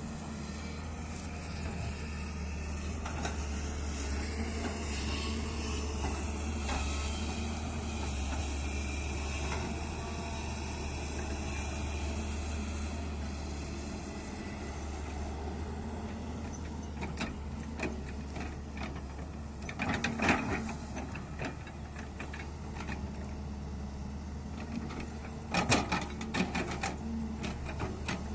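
Excavator's diesel engine running steadily with a low drone, a wavering whine over it for the first several seconds, and bursts of metallic clanks and knocks twice in the latter part as the machine works.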